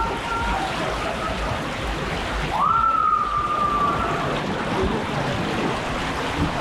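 Water rushing and splashing down a water slide. About halfway through, a long high-pitched call rises quickly and then holds for over a second.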